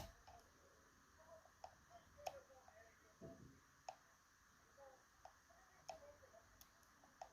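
Faint, irregular clicks of a lock pick and tension tool working the pins inside a Lockman Megacross, a Japanese lock with two rows of pins, while its top row is being picked.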